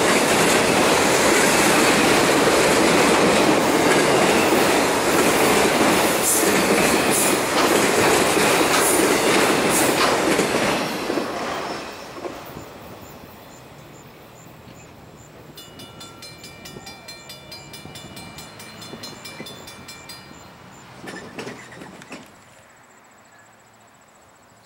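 Freight train of autorack cars rolling past with a loud, steady wheel-on-rail rumble and a few rail-joint clicks, until the last car clears about twelve seconds in. The sound then falls away to a faint receding train, with a thin high-pitched tone for a few seconds.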